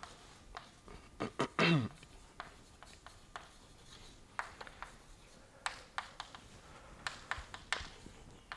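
Chalk writing on a blackboard: a run of short irregular taps and scratches as the words are written. About a second and a half in comes one brief, louder sound that falls in pitch.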